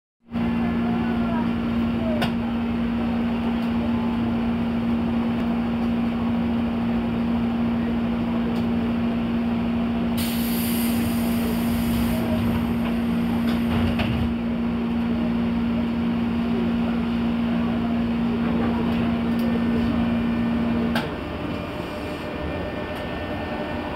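A JR 201 series electric train standing at a station, with a steady low hum from its onboard equipment. A hiss of air comes about ten seconds in. Near the end the hum cuts out and the armature-chopper control's whine starts to rise as the train pulls away.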